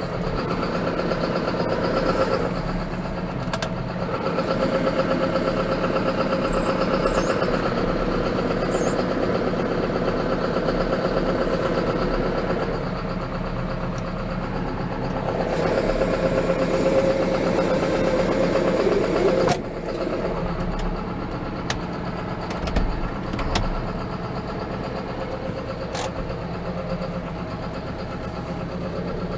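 John Deere 6430 tractor's four-cylinder diesel engine running, heard from inside the cab. It gets louder for a few seconds past the middle, then drops off suddenly with a click, and a few short sharp clicks follow.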